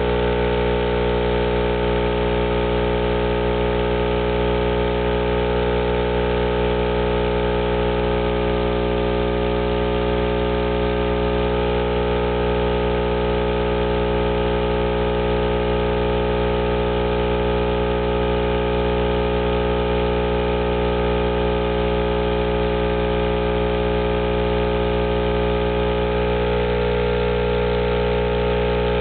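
12-inch RD Audio Heavyweight dual 2-ohm subwoofer wired straight to a wall socket, its cone driven by mains AC: a loud, steady buzzing hum with many overtones that does not change. The driver is being overdriven by mains voltage in an attempt to blow it.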